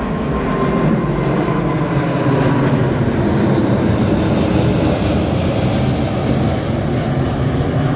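Airbus A380 four-engine jetliner at full takeoff power: loud, steady jet-engine noise that swells slightly in the first couple of seconds.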